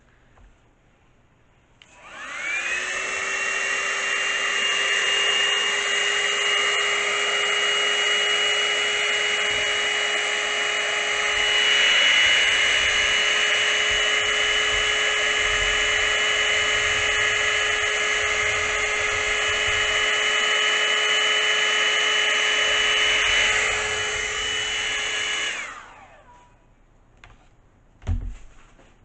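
Hand-held hair dryer switched on about two seconds in, its motor whine rising as it spins up, then running steadily with a rush of air as it blows the wet paint outward. It is switched off near the end and winds down, followed by a single knock.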